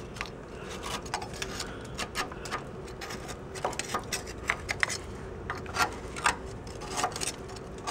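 Metal scraper blade picking and scraping at flaking undercoating and rust scale on a Toyota Tundra frame: irregular short scrapes and clicks as pieces break away, a few louder than the rest. The undercoating is crumbling off because it has held moisture against the steel and let it rust.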